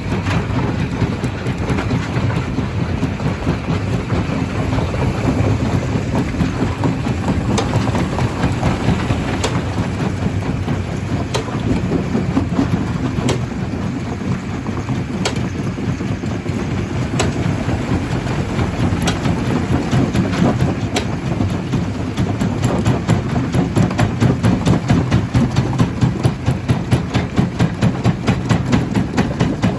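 Stone crusher running, with a dense low rumble and continual crunching and clattering of rock. A sharp knock comes about every two seconds through the middle, and near the end the sound pulses at a quicker beat of two or three a second.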